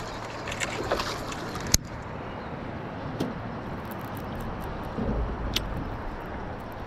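Steady wind and water noise around an open fishing boat, with a sharp click about two seconds in and a dull low thump about five seconds in.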